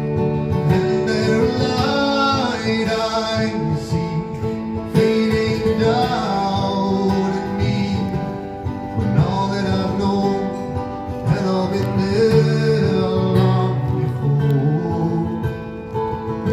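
Live song on acoustic guitar, with a voice singing long notes that glide between pitches.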